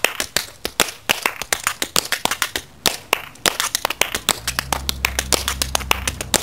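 Tap shoes' metal taps striking concrete in quick, irregular clicks of a tap dance. A low steady hum comes in about two-thirds of the way through.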